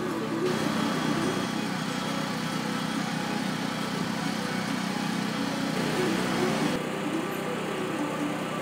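An engine running steadily, a constant mechanical hum with no change in speed.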